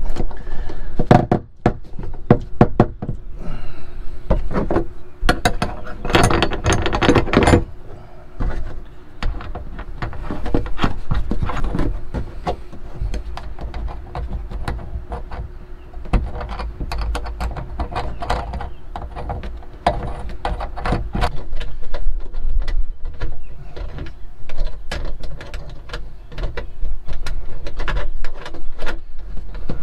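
Clicking, rattling and knocking of metal roof-box mounting hardware as nuts and clamp plates are fitted and tightened inside the plastic box, with a dense run of rapid clicks about six seconds in.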